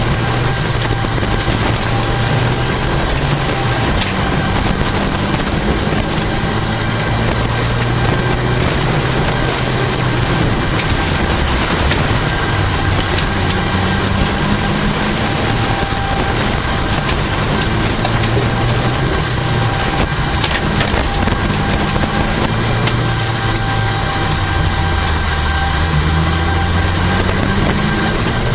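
1989 Toyota Celica GT4 rally car driven hard on a special stage, heard from inside the cabin: its turbocharged four-cylinder engine note climbs and drops again and again through gear changes and lifts, under loud, constant tyre and road noise.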